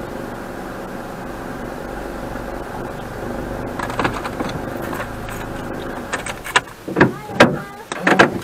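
Car running at low speed, heard from inside the cabin as a steady low hum. From about four seconds in come a series of sharp clicks and knocks, and near the end a few short, louder sounds.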